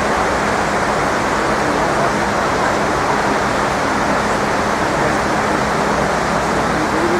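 Steady rush of water pouring down the walls of a 9/11 Memorial pool waterfall.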